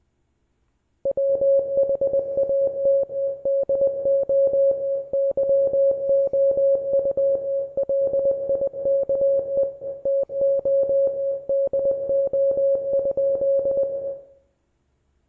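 International Morse code sent as a single-pitched beep, keyed on and off rapidly in a stream of characters with short pauses between words. It starts about a second in and stops shortly before the end.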